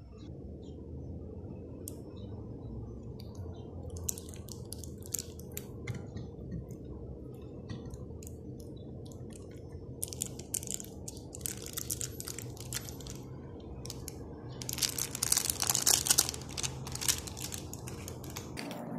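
Crinkling, crackly handling noises as a sheet of puff pastry is laid over the filling and pressed down by hand, coming in short spells and loudest near the end, over a steady low hum.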